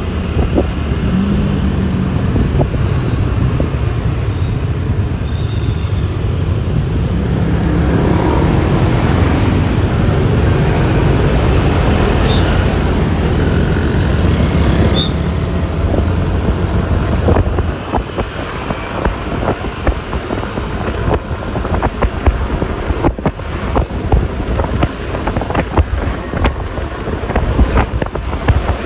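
Wind buffeting the microphone and road noise on a Yamaha Lexi LX 155 scooter ride, over a steady low engine drone. About two-thirds of the way through, the drone eases and the wind turns choppy, with many short bumps.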